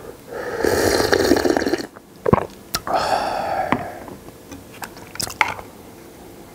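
A person slurping spicy noodle-soup broth straight from a large bowl: two long, loud slurps of about a second each, with a short click between them, then quieter mouth and chewing sounds.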